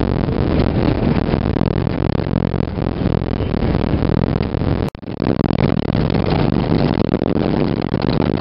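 A vehicle driving over a corrugated dirt road, heard from inside the cabin: the engine runs under a dense, steady rumble and rattle from the washboard surface. The sound cuts out briefly about five seconds in, then carries on as before.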